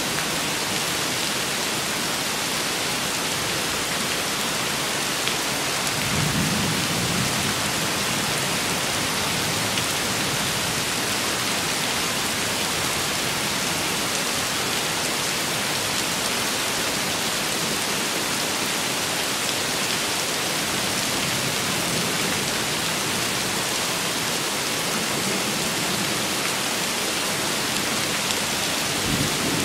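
Steady heavy rain falling with an even hiss. A low roll of thunder swells about six seconds in and lasts a couple of seconds. Another rumble begins near the end.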